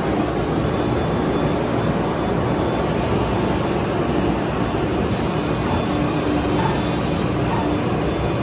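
Thermwood CNC router running under power, its spindle and 10 HP vacuum hold-down pump making a loud, steady machine noise with a steady hum. A faint high whine rises out of it about five seconds in and lasts a second and a half.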